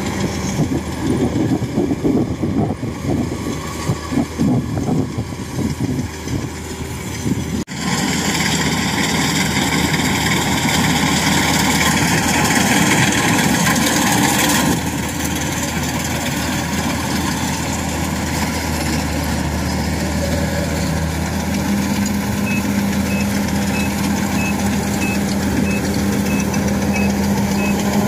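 Rice combine harvester running under load, its engine and threshing drum making a steady drone as it cuts and threshes standing rice. The sound changes abruptly once, about eight seconds in, then holds steady.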